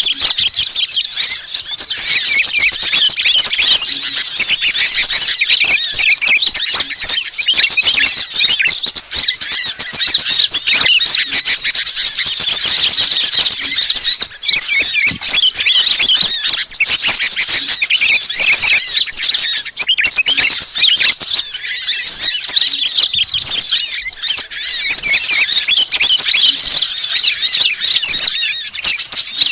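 A dense, loud mix of high, rapid twittering and chirping from several small songbirds layered together in a bird-lure call recording, going on without a pause.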